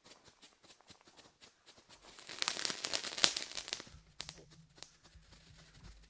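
Nico Europe Strobe Flash F1 youth firework giving scattered faint pops, then a dense burst of crackling lasting about two seconds in the middle as the piece ends in its crackling effect. A few sparse pops follow.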